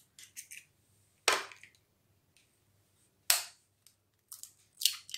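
Raw eggs' shells being tapped and cracked with a metal spoon: short, sharp cracks with silence between, a loud one a little over a second in and another about two seconds later, with lighter taps at the start and a quick cluster near the end.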